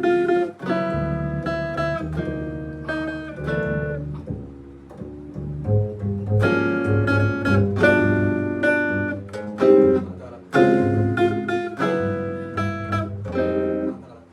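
Guitar playing through a chord progression: chords struck one after another and each held briefly, with short breaks between them.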